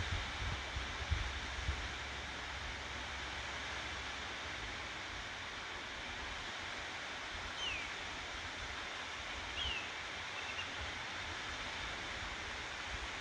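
Steady rushing hiss of a waterfall pouring into a gorge pool, with wind gusting on the microphone in the first couple of seconds. Two short, high bird chirps come about eight and ten seconds in.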